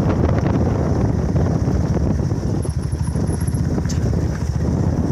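Motorcycle taxi's engine running with a steady low rumble while riding, wind buffeting the microphone.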